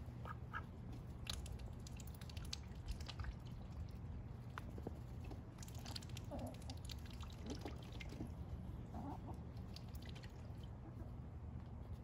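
Ducks and chickens feeding on spent grain: many short pecking and dabbling clicks as bills and beaks work at the grain and tub, with a few brief soft calls from the flock.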